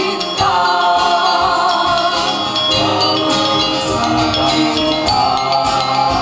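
A small mixed group of voices singing a sung-poetry piece in several-part harmony into hand-held microphones, heard amplified.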